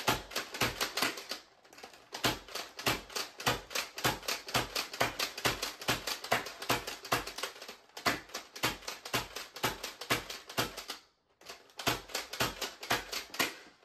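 Dart Zone Max Tomcat pump-action foam-dart blaster being slam-fired: the pump is worked with the trigger held, so each stroke sets off a shot and makes a sharp plastic clack. The clacks come in a fast run of several a second, with a brief break about a second and a half in and another near eleven seconds in.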